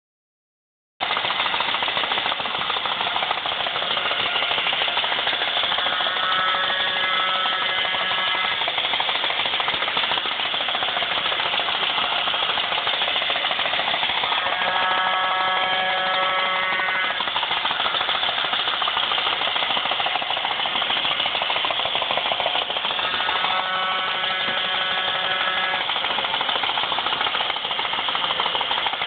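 Battery-operated Modern Toys Neptune tin tugboat running: a fast, steady mechanical rattle from its motor and gearing starts about a second in. A pitched tone comes in over it three times, two to three seconds each, about every eight or nine seconds.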